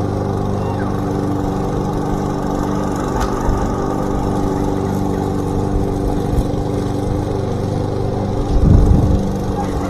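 Gasoline lawn mower engine running steadily, just brought back to life after a spark plug change. Near the end there is a brief louder low rumble.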